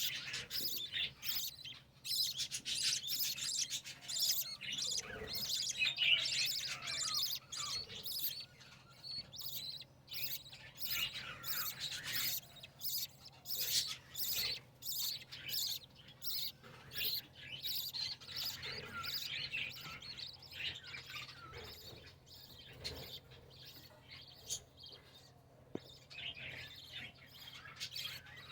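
A colony of budgerigars and other small cage birds chirping and chattering continuously, with many short calls overlapping.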